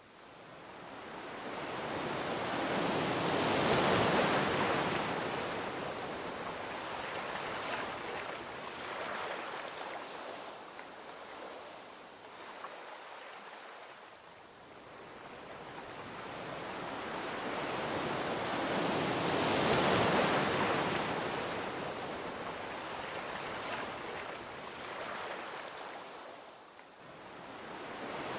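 Gentle ocean waves breaking and washing onto a beach, a rushing hiss that swells twice, about a quarter of a minute apart, and recedes in between. The sound fades in at the start.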